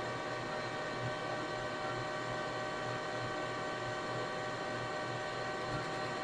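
Metal lathe running with the chuck spinning, giving a steady mechanical whine made of several even tones over a low hum.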